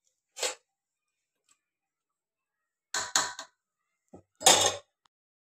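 Short clinks and knocks of a metal ladle against a steel pot of syrup: one about half a second in, a quick cluster of three around three seconds, and the loudest near the end.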